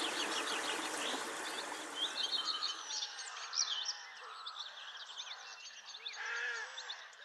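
Songbirds chirping and calling in many quick, high notes, with a lower call about six seconds in. A steady rushing noise underneath fades out over the first three seconds.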